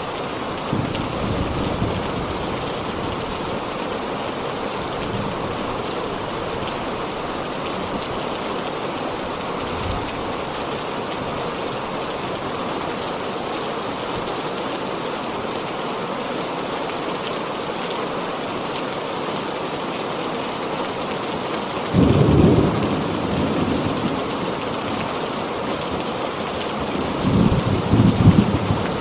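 Heavy rain pouring steadily, with thunder rumbling. There is a faint rumble about a second in, a sudden loud thunderclap about three-quarters of the way through, and another rolling rumble near the end.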